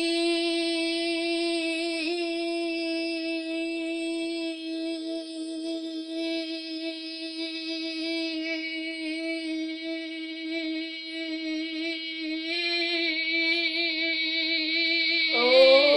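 A boy's voice holding one long 'boi' note at a steady pitch: the drawn-out end of a 'yeah boi' shout. The note wavers more after about twelve seconds and breaks downward in pitch just before the end.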